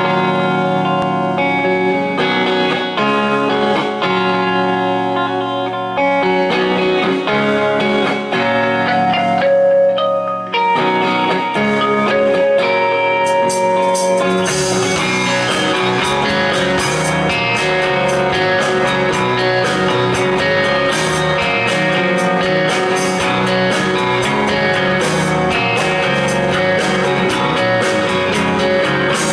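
Live rock band playing an instrumental intro led by electric guitars, with no singing yet. About halfway through, the playing becomes fuller and denser, with sharp strokes that fit crashing cymbals.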